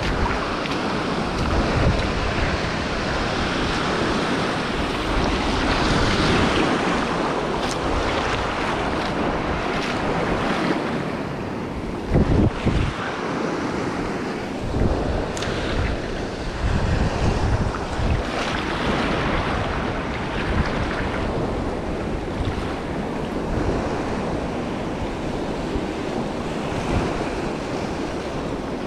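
Small waves washing in over shallow rocks and seaweed, with wind buffeting the microphone in gusts, strongest about twelve seconds in and again a few seconds later.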